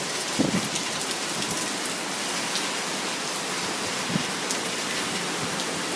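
Heavy rain falling steadily in a thunderstorm downpour, an even hiss of rain hitting surfaces.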